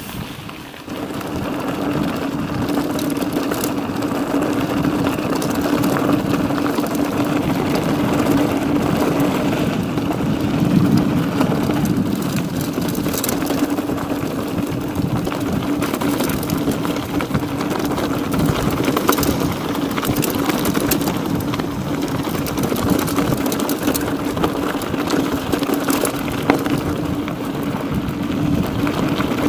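Mountain bike being ridden at a steady pace: a steady tyre hum over a rushing noise, with scattered small clicks and rattles, starting about a second in.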